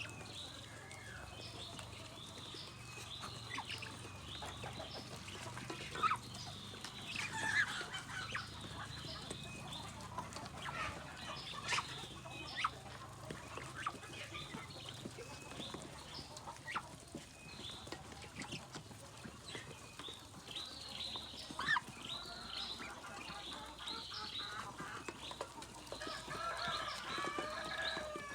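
Flock of kampung × Bangkok crossbred chickens clucking, with many short high calls scattered throughout and a longer call near the end.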